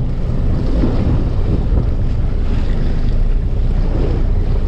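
Strong wind buffeting the microphone, a heavy steady rumble, with choppy sea waves washing against the boat's hull.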